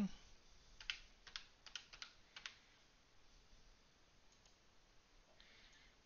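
Typing on a computer keyboard: a quick run of about eight to ten light keystrokes within the first two and a half seconds.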